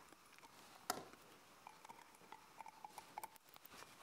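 Near silence with faint ticks and one sharper click about a second in, from a glass measuring cup against a stainless steel mixing bowl as oil is poured in.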